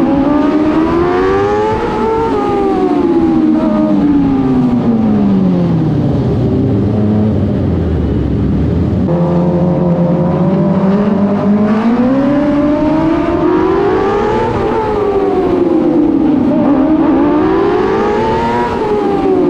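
TQ midget race car engine heard from the cockpit, revving up and falling off in repeated swells, dropping to a low idle partway through, then building revs again in rising and falling cycles.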